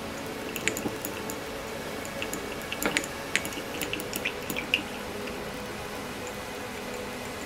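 Scattered light clicks and taps of small parts being handled, a cluster of them in the first five seconds, the sharpest about three seconds in, over a steady low hum.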